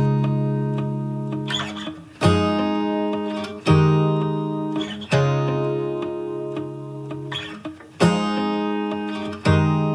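Background music: an acoustic guitar strumming slow chords, each left to ring and fade before the next is struck.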